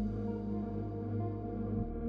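Background music: slow ambient synth chords held over a low bass, changing about every two seconds.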